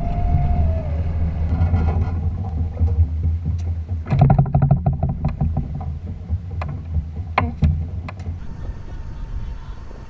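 Electric catamaran trash skimmer working in harbour water: a steady low machine hum with water churning, a burst of rattling about four seconds in and a few sharp clicks. Near the end the hum drops away, leaving wind and splashing water.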